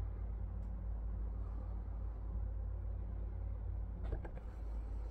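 Pliers lightly crimping a ring terminal onto a copper wire, giving a few faint clicks, one just under a second in and another about four seconds in. A steady low rumble runs underneath.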